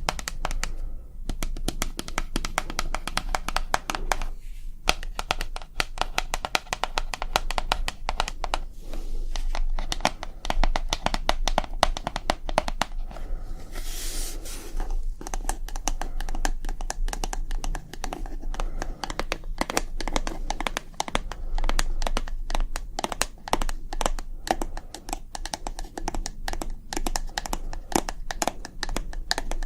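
Rapid, dense tapping and crinkling sounds made by hand, many small clicks a second, with a short hiss about fourteen seconds in, over a steady low hum.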